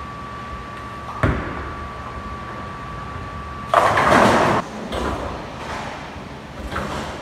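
A bowling ball thuds onto the lane about a second in, then a little over two seconds later crashes into the pins with a loud clatter lasting about a second, followed by a few smaller knocks.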